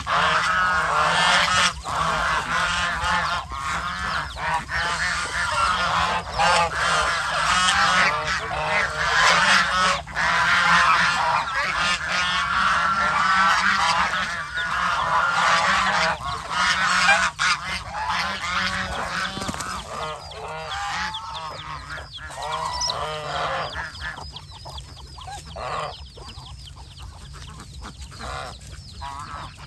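A flock of domestic geese honking, many calls overlapping. The calls thin out and grow quieter over the last third, leaving scattered honks over a steady low hum.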